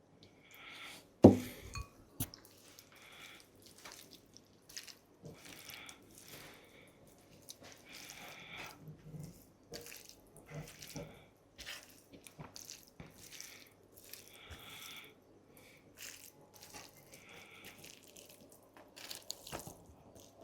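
A sharp knock about a second in, then a run of short wet clicks and smacks, roughly one a second: close-miked mouth sounds of eating boiled egg and tamarind.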